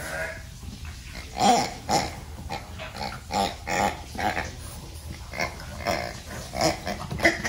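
French Bulldog puppy grunting and snorting in a string of short, pig-like bursts while it chews and wrestles a toy.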